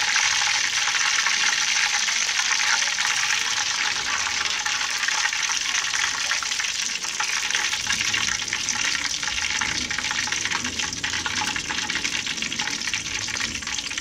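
Hot cooking oil in a wok sizzling steadily with fine crackles as a fish deep-fries.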